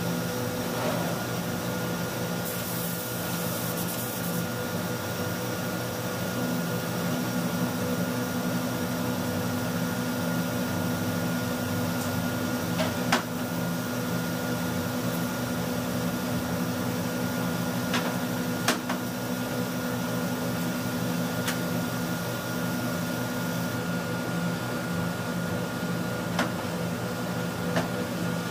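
Steady hum of woodworking shop machinery running idle, no cut being made, with a few sharp knocks as panels are handled on the steel saw table.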